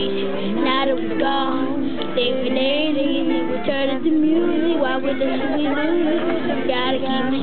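Electronic keyboard playing held chords while several voices sing along, women's voices among them.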